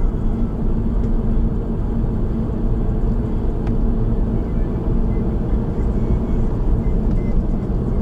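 Steady low rumble of tyre and engine noise heard inside a car cruising on an expressway, with a constant low hum and one faint click a little before the middle.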